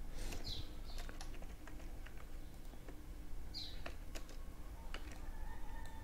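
Computer keyboard keys and mouse buttons clicking irregularly as shortcuts are pressed. Two short high chirps slide downward in pitch, one near the start and one a little past the middle.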